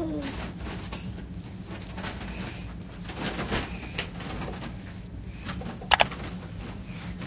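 Rustling and small knocks of close handling, over a steady low hum, with a sharp double click about six seconds in. A short falling voice sound is heard at the very start.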